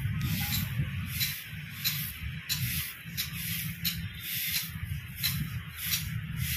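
Long-handled twig broom sweeping over dolomite beach sand, a scratchy swish about twice a second, over a low rumble.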